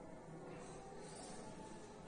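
Faint scratching of a marker pen writing on a whiteboard, over a low steady room hiss.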